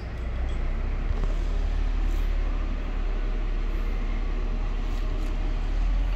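Steady low rumble of road traffic, a motor vehicle's engine running nearby, growing louder just after the start and then holding level.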